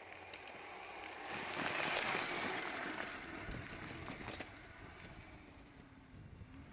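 Electricross electric dirt bike passing by on a trail: a rush of noise that builds to its loudest about two seconds in and fades away over the next few seconds, with no engine note.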